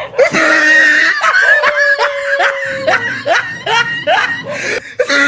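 People shrieking and laughing: a long held shriek, then a string of short rising cries, two or three a second.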